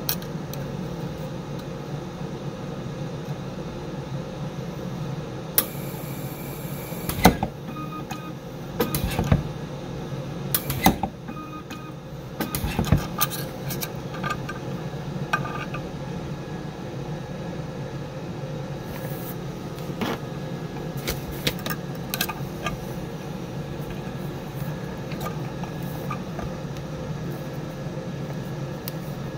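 Sunstone Ωmega PA 250i pulse arc micro welder firing a series of short welds that join a thin copper tab to stainless steel, heard as sharp snaps and clicks. The clicks come mostly in the first half, over a steady low hum, with a brief high whine about six seconds in.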